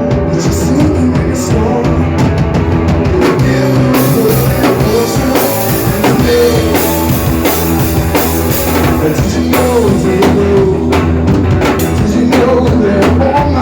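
Rock band playing live, with a full drum kit driving the beat under guitars and bass. Cymbals wash in loudly about four seconds in.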